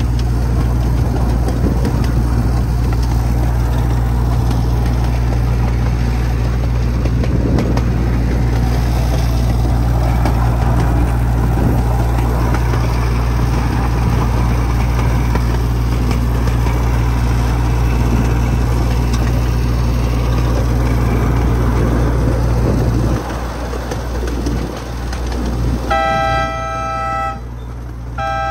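Miniature ride-on train running with a steady low hum and rolling noise, which eases about 23 seconds in. Near the end its multi-tone horn sounds two short blasts.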